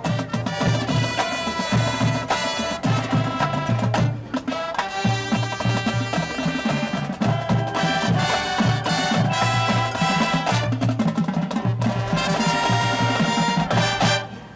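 High school marching band playing, brass over a steady pattern of drums, until the whole band cuts off together a little before the end.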